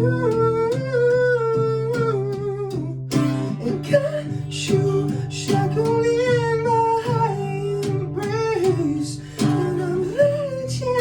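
Music: a voice singing a wavering melody over plucked and strummed acoustic guitar.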